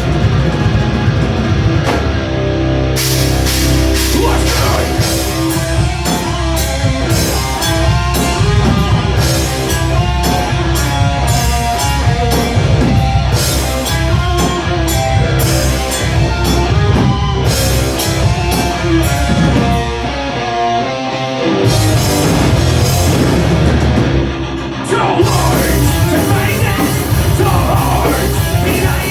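Live rock band playing loud, distorted electric guitar, bass and drum kit with crashing cymbals, with some singing. The band drops out briefly around three-quarters of the way through, then comes back in.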